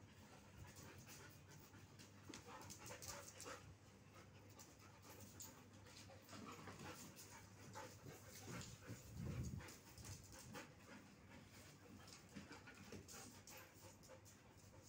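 Faint panting of dogs at play, with scattered light clicks and scuffs and a soft low thump about nine seconds in.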